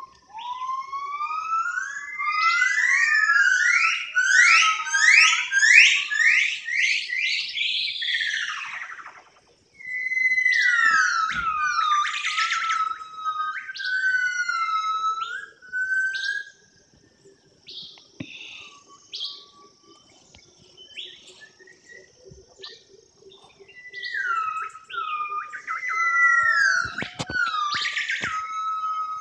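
A bird singing loud whistled phrases: first a quick run of rising sweeps, then notes that slide down and level off, with a quieter spell in the middle before more sliding whistles near the end.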